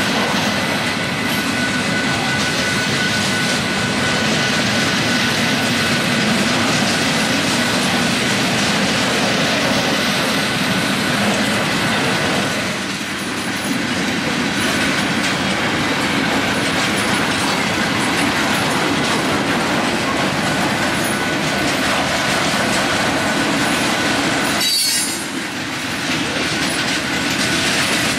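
Freight train cars rolling past at speed: a steady rumble and clatter of steel wheels on rail, with a thin steady wheel squeal over about the first half. The sound dips briefly about thirteen seconds in and again near the end.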